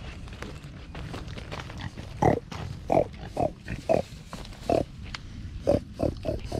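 Young pigs, a red Duroc and a Hereford, grunting: about nine short grunts starting about two seconds in, several close together near the end. The pigs grunt this way when someone comes to the pen, expecting to be fed.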